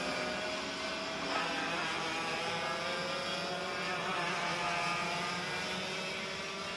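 Several two-stroke racing kart engines running at high revs together, a buzzing whine whose pitch slowly climbs as they accelerate.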